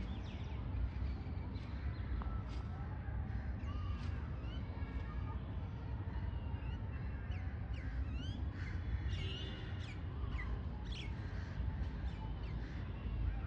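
A flock of birds calling, with many short chirps and quick rising and falling calls one after another, over a constant low rumble.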